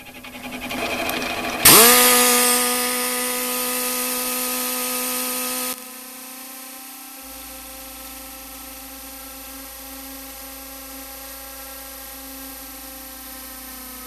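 Air-powered die grinder starting up about two seconds in with a fast rising whine and loud air hiss, while a mini lathe spins its 3-jaw chuck, for grinding the chuck jaws. About six seconds in the hiss cuts off sharply, leaving a quieter, steady whine.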